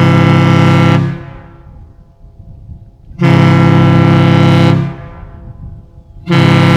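Kahlenberg T4 ship horn, a 260 lb bronze triple-chime air horn, sounding its deep chord in long blasts. One blast ends about a second in, another lasts about a second and a half mid-way, and a third starts near the end. Each blast fades away after it stops.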